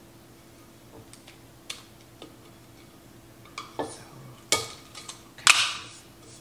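Clear tape being pulled off the roll in short rips and pressed across the mouth of a vase, with a few light clicks of handling before it. The rips get louder toward the end, the last one the loudest.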